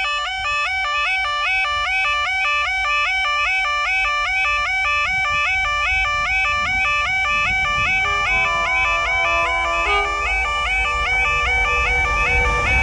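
Level crossing audible warning alarm sounding while the barriers are down: a rapidly repeating, shrill yodelling tone, the signal that a train is approaching. Near the end the low rumble of the approaching Class 66 diesel freight locomotive builds beneath it.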